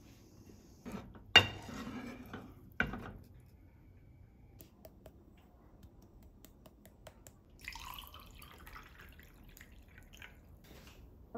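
Dishes knocked down on a tabletop twice, a sharp clack about a second in and another about a second later. Near the end, tea is poured over ice into a glass, with faint drips and clinks.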